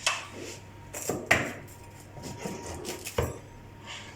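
Kitchen clatter: a few sharp knocks and clicks of utensils on a hard surface as a freshly made pizza is handled.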